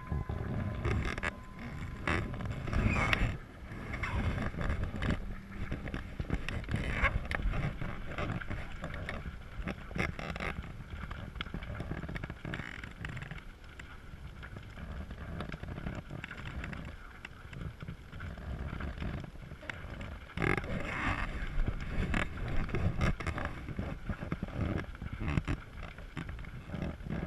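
Wind buffeting the microphone: a low rushing noise that rises and falls in irregular gusts.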